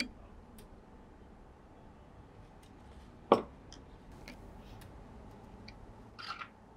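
Light ticks and clicks of a plastic spray can and small model parts being handled on a cutting mat, with one sharp knock a little over three seconds in as the spray can is set down. A short rustle near the end.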